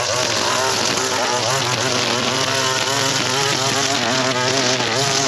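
Small two-stroke engine of a gas string trimmer running at high revs, its pitch wavering up and down as the throttle and load change.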